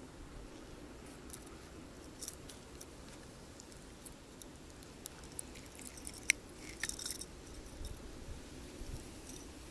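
Small metallic clicks and jingles of a metal blade lure, its hooks and snap clip knocking together as it is worked free of a caught perch's mouth, coming in scattered groups about a second in and again around six to seven seconds in. Faint wind rumble underneath.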